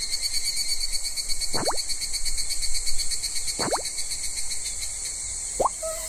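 Night-time insect ambience: a steady, fast-pulsing high buzz like crickets, with a short rising call about every two seconds.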